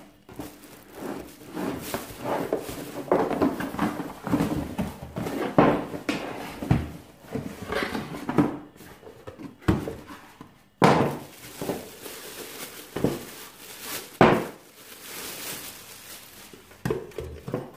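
Cardboard box and plastic wrapping rustling and crinkling as a toaster is pulled from its packaging and unwrapped. There are a couple of sharp knocks in the second half.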